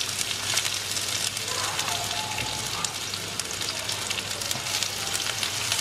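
Sliced onions sizzling in hot coconut oil in a large kadai, with a steady fine crackle.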